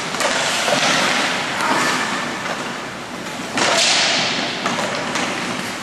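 Ice hockey play on the rink: skate blades scraping the ice and sticks clattering, with two loud sudden scrapes, one just after the start and one about three and a half seconds in.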